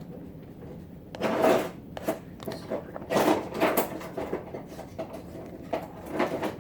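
Irregular scrapes and knocks of things being handled and rubbed, in a few short bursts: about a second in, around three seconds in, and near the end.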